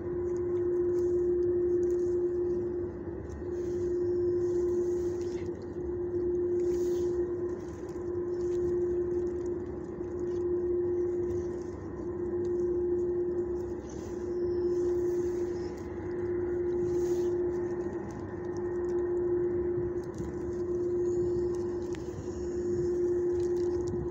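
A steady machine hum on one pitch, with a fainter higher overtone, swelling and fading about every two seconds.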